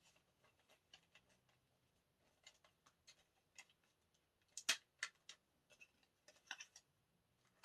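Faint, scattered taps and clicks of a music album's paper, card and plastic contents being handled. The sharpest tap comes about four and a half seconds in, with a few more shortly after.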